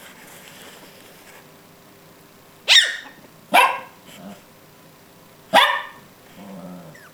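Small dog barking in play: three short, sharp, high-pitched barks, the second about a second after the first and the third about two seconds later.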